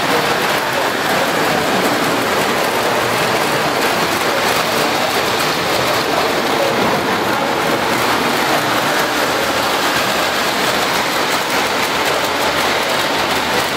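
O scale three-rail model trains running around metal track loops: a steady, dense rattling rumble of metal wheels and motors on the rails.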